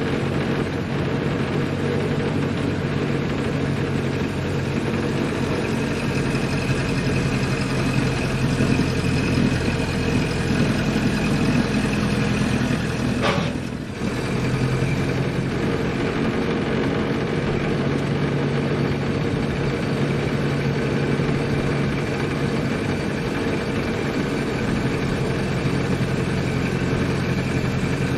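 1928 Ford Model A's four-cylinder engine running steadily as the car is driven, with a short dip in level and a brief sharp noise about halfway through.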